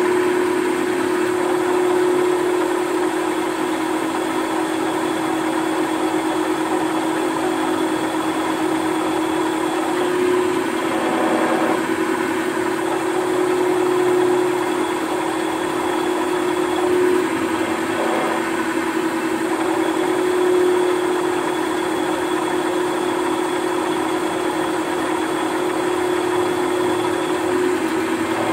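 Milling machine spindle running with a constant motor tone while a 5 mm tapping drill is hand-fed through clamped metal parts, cutting chips. Small swells in the noise come and go as the drill bites.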